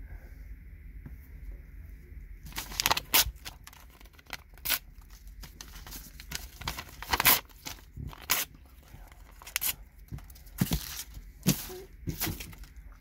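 Paper being torn up by hand: after a couple of quiet seconds, a run of short, sharp rips and rustles, one after another, into small scraps.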